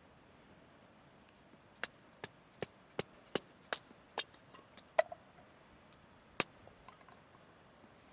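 A run of about a dozen sharp, irregular clicks and light clinks of eating utensils against a dish, one ringing briefly.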